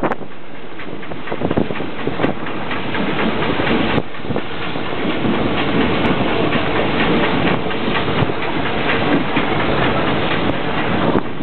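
Steam-hauled train running on the rails, its wheels clicking and clattering over the track with a steady rumbling run noise.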